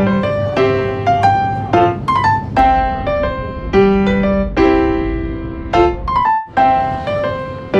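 Background music: solo piano playing a light, repeating melody of struck notes.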